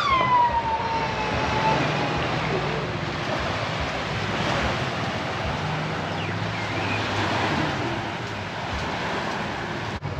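Wind and small waves on a sandy beach, with a faint low hum coming and going. In the first two seconds a high call trails off, falling in pitch.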